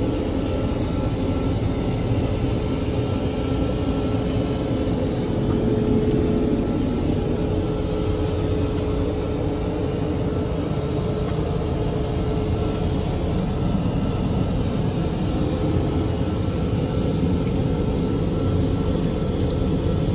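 Steady in-flight cabin noise of a Boeing 787 airliner: a constant hiss and low rumble with a faint steady whine. Near the end, a faint high hiss joins in as water runs from the lavatory's sensor tap over a hand.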